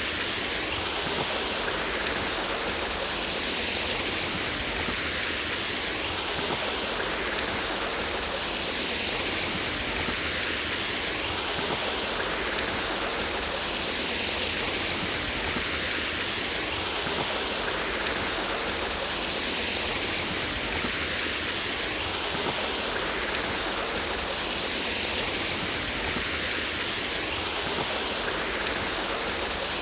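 A small waterfall splashing down a rock face, a steady rushing of water.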